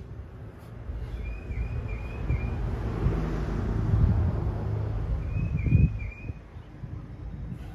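A vehicle drives past on the street, its engine and tyre noise swelling over a few seconds and falling away about six seconds in. A bird chirps in short phrases twice over it.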